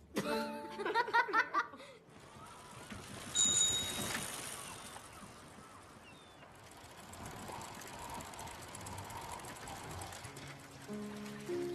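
Cartoon owlets chirping and squeaking in quick, high, wavering calls for about two seconds. Then a steady airy outdoor hiss with a brief high ring about three and a half seconds in, and music starting near the end.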